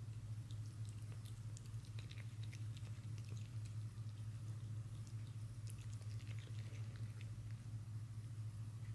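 A cat eating tuna off a plate: faint, irregular small wet clicks and smacks of chewing and licking, over a steady low hum.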